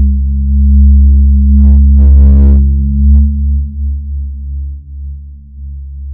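Loud, deep, steady drone of horror-film sound design. A brief higher buzzing sting comes about two seconds in. The drone eases off in the second half.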